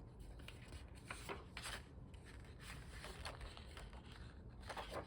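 Paper planner pages being handled, with a few soft rustles and scrapes of paper.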